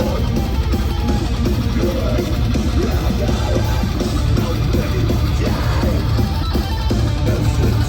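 Metalcore band playing live at full volume: distorted electric guitars and drums in a dense, unbroken wall of sound, with shouted vocals over it.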